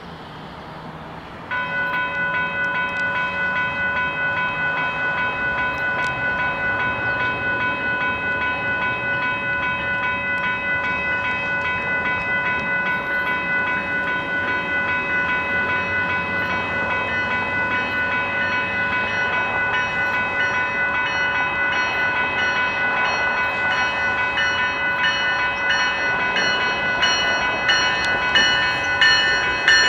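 Railway level-crossing warning bell that starts suddenly about a second and a half in and then rings rapidly and steadily. Near the end the approaching GO Transit bilevel train grows louder.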